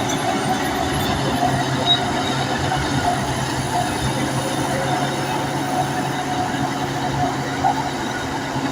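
Bulldozer working: a steady engine drone with an on-and-off high squeal from its steel crawler tracks.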